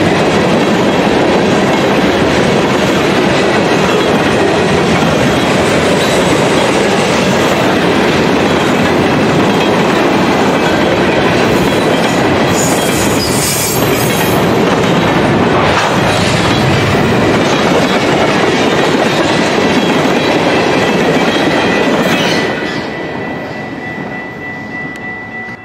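Freight train of tank cars, covered hoppers and boxcars rolling past, its wheels running steadily on the rails. The sound fades away near the end.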